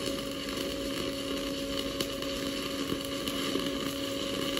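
Stick (shielded metal arc) welding with a 7018 electrode at about 135 amps DC electrode positive on quarter-inch mild steel: a smooth, steady crackling arc as the bead is run, with a steady low hum underneath.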